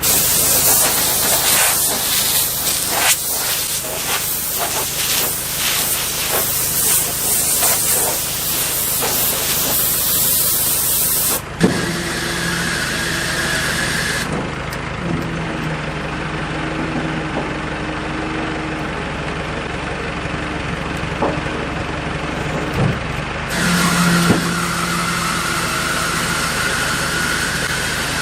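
Tractor engine idling steadily. For about the first eleven seconds a loud, rushing hiss sits over it, then cuts off abruptly.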